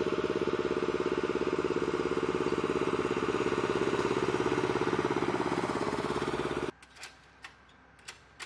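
An engine running steadily with a rapid, even pulse; it cuts off abruptly about six and a half seconds in, followed by a few sharp clicks.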